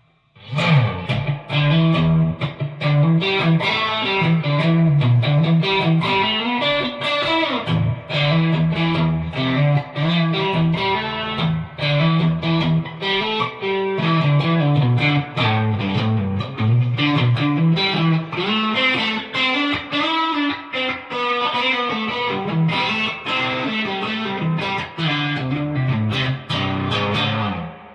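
Fender Player Series Stratocaster electric guitar played through an overdriven amp, a continuous passage of riffs and melodic lines that stops just before the end.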